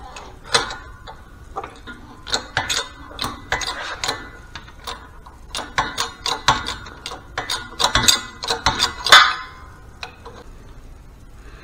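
Steel parts clinking and knocking irregularly as a transmission door and gear supports are set in place on a shop press bed, with the sharpest knock about nine seconds in.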